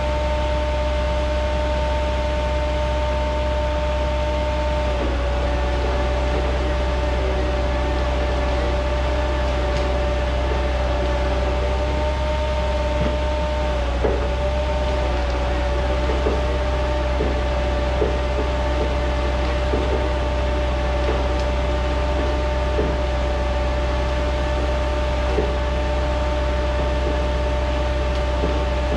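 Rottne H20 forestry machine running steadily, with a deep engine hum and a steady high whine from its drive or hydraulics. The whine dips slightly in pitch about five seconds in and again about halfway. From about halfway there are faint knocks about every two seconds.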